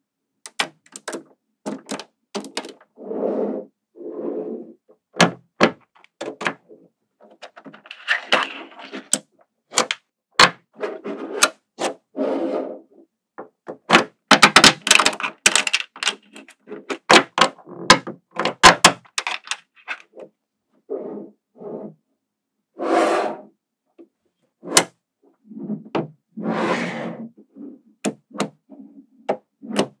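Small magnetic balls clicking sharply as they snap onto one another, dozens of separate clicks, with short bursts of rattling as strips of balls roll and slide against each other while being pressed into place.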